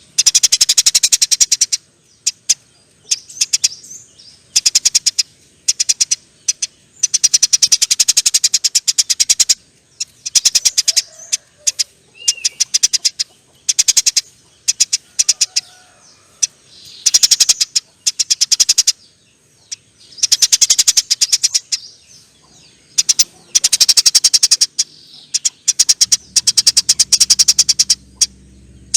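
Eurasian tree sparrow chattering: bursts of very rapid, dry chirps, each lasting a second or two, repeated again and again with short pauses between them.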